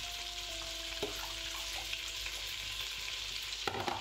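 Butter sizzling steadily in a stainless steel pot as fennel seeds fry in it for a tempering. A brief clatter near the end.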